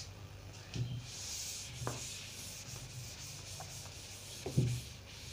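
Cloth rag rubbing across a whiteboard, wiping off marker writing: a steady swishing hiss, broken by a few dull knocks, the loudest near the end.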